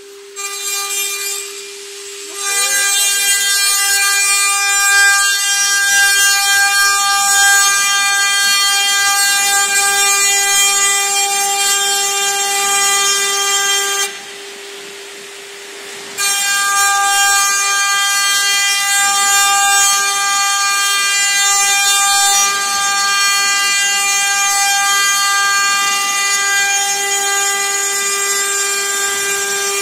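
CNC milling machine spindle running with a steady whine while the cutter mills a cast-iron workpiece, the cut adding a loud, high, ringing metal-cutting noise. About fourteen seconds in, the cutting noise stops for about two seconds, leaving only the spindle's whine, then starts again.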